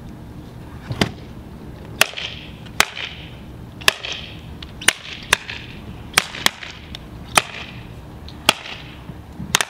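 Spring clips on the back of a wooden contact printing frame snapped shut one after another: about eleven sharp snaps, roughly one a second, several with a brief ring after them.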